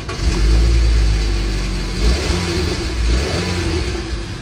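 Car engine running and being revved, a heavy low rumble that sets in just after the start, dips briefly about halfway and eases off near the end; the engine is running again after the no-start repair.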